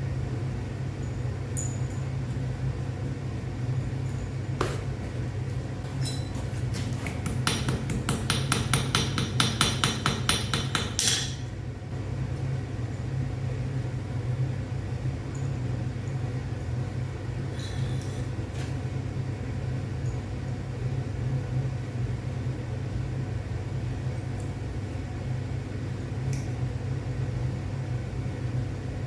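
A hammer striking hot metal on an anvil in a quick run of ringing blows, about four a second for several seconds, followed by a few single taps. A steady low hum runs underneath.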